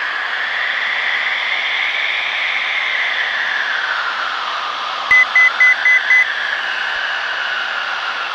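Cessna 172's engine and propeller running steadily in cruise, heard as a hiss-like drone through the headset intercom feed. About five seconds in, a quick run of five short, high beeps sounds over it.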